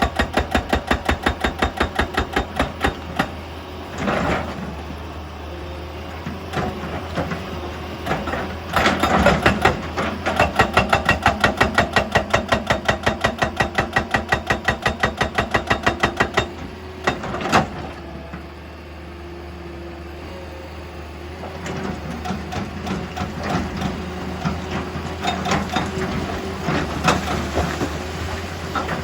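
Heavy machinery at work: a steady diesel engine hum under a rapid, regular mechanical pounding of about five strokes a second, which runs in stretches, stops for a few seconds around the middle and comes back more unevenly, with a couple of single heavy knocks between.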